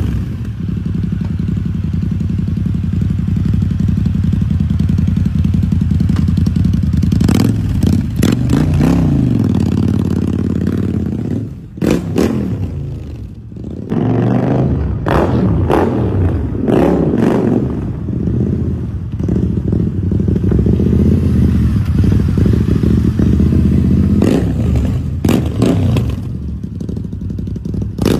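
Motorcycle engine running through its exhaust, idling and revved up and back down several times, with brief quieter dips between the revs.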